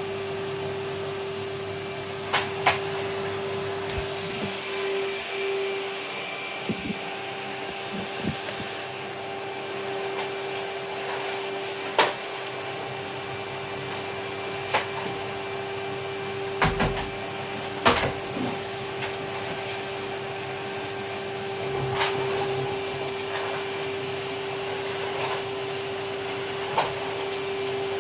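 Vacuum cleaner running steadily, a constant motor hum with airflow hiss, with a dozen or so sharp knocks and clacks scattered through it.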